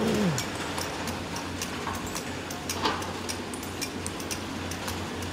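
Excavator diesel engines running in a steady hum, with frequent irregular clicks and knocks of rock and steel as the buckets load dump trucks. A brief falling tone comes right at the start.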